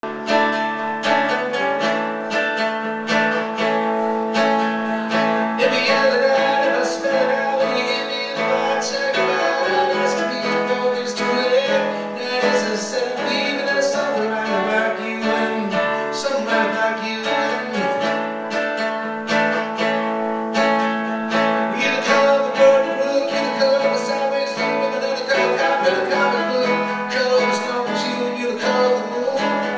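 Acoustic guitar strummed and picked in a live performance, joined by a man singing from about six seconds in.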